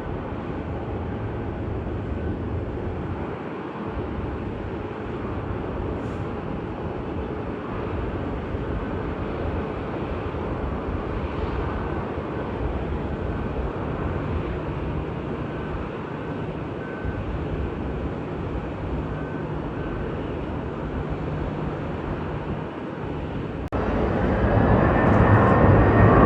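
Jet aircraft engines: a steady rumble that jumps abruptly much louder near the end, with a whine, as a jet comes close.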